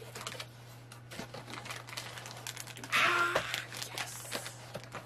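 Light clicks and rustles of a cardboard box and plastic packaging being opened and handled, with a louder crinkling burst about three seconds in. A steady low hum runs underneath.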